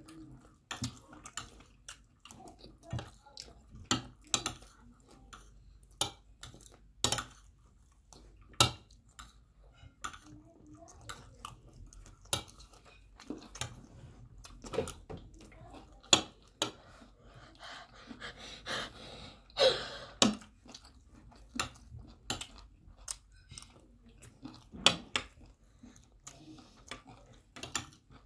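Spoons and forks clicking and scraping against plates of rice at irregular intervals, mixed with chewing and mouth sounds of people eating. A brief vocal sound comes about two-thirds of the way through.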